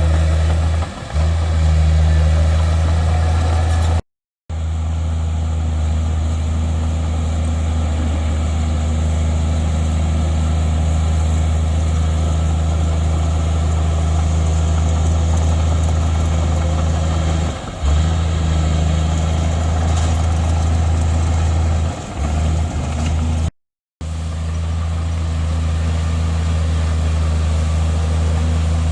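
Heavy diesel engine of earthmoving equipment running steadily with a deep, constant drone. The sound cuts out to silence twice for less than half a second.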